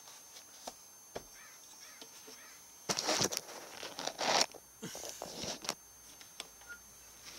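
Rustling of grass brushing against the camera as it is moved low over a lawn, in two rough spells a few seconds in, with scattered light clicks of handling.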